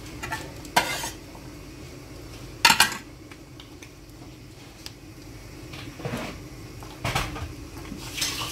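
Kitchen dishes and utensils clinking: a few sharp separate knocks and clinks, the loudest about a third of the way in, over a steady low hum.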